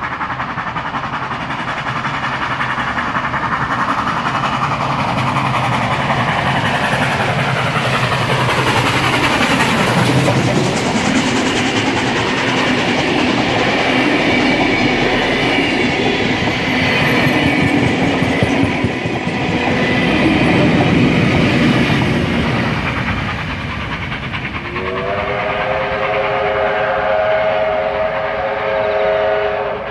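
Steam locomotive 3642 approaches and passes at speed, then its passenger carriages roll by with wheels clicking over the rail joints. About 25 seconds in, a long chime whistle of several notes sounds as the train moves away.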